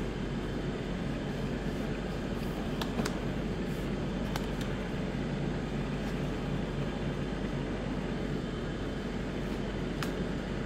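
Steady background hum and hiss, with a few faint light taps as trading cards are set down on a playmat.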